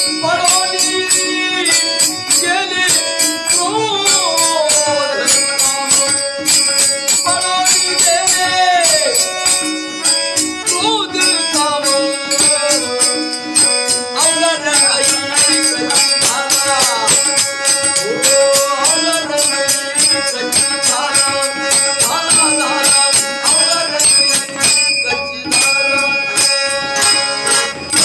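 Marathi devotional folk song: a male voice sings a gliding, ornamented melody over a held drone and a fast, steady beat of jingling percussion.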